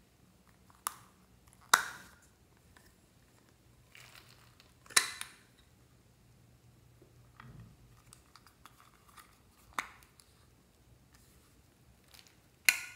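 Sharp plastic clicks and taps, about five of them, spaced a few seconds apart, as hard plastic lollipop-shaped toy containers are snapped open and handled over a glass dish.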